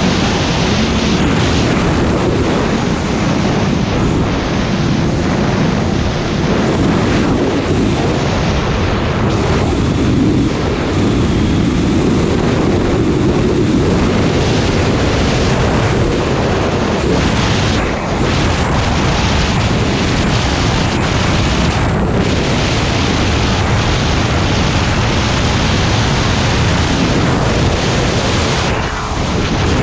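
Snowmobile running at speed along a groomed trail, its engine note under heavy wind rush on the microphone. The engine briefly eases off near the end.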